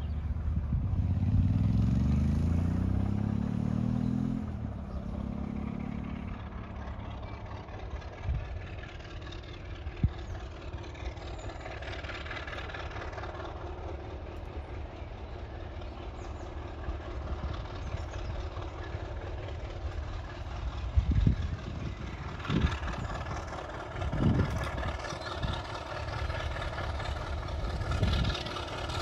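Diesel locomotive engine working as it approaches hauling coaches, its note rising in pitch during the first few seconds and then running steadily. A few short low thumps come in the second half.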